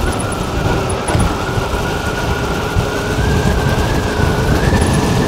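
Electric moped under way: a steady high whine from the electric motor that rises slightly in pitch about four seconds in as it picks up speed, over the rumble of wind buffeting the microphone.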